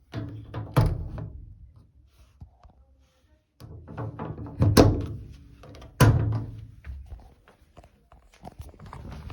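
Gorenje Superavtomat PS 615 washing machine running, giving heavy thuds and clunks in four separate bursts a second or two apart, with short quiet gaps between.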